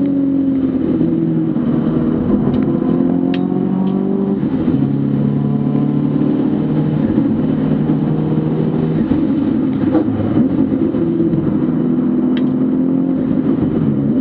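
Racing car's engine at high revs, its pitch rising and falling repeatedly as the car accelerates, lifts and changes gear on a hillclimb course.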